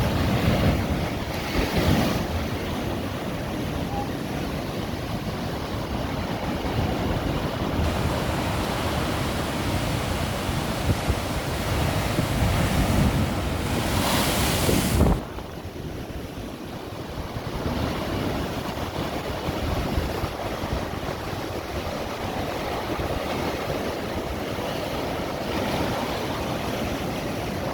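Ocean surf washing in and out, with wind buffeting the microphone. About halfway through a louder surge builds and then drops away suddenly.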